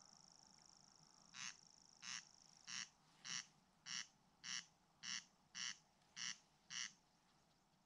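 A common grasshopper warbler reels: a high, steady, insect-like trill that stops about three seconds in. Overlapping it, a corncrake gives its dry rasping "crex" call, ten rasps evenly spaced a little over half a second apart, starting about a second and a half in.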